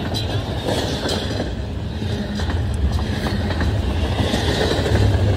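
Double-stack intermodal freight train passing close by: steel wheels running over the rails with a low rumble and a clatter of wheel clacks, growing slightly louder near the end.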